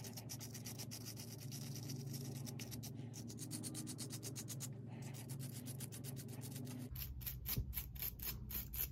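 A small hand brush scrubbing corrosion off a model train truck side frame in rapid back-and-forth strokes, which grow louder and sharper near the end.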